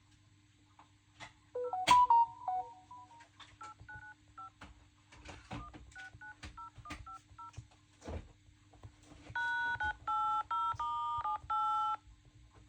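A mobile phone's keypad being dialled, sounding touch-tone (DTMF) beeps with light taps between them. The beeps are faint at first, then a run of about six louder, evenly spaced tones comes near the end.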